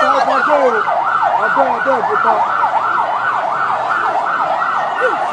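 Vehicle siren in a rapid yelp, its pitch sweeping up and down about three times a second without a break.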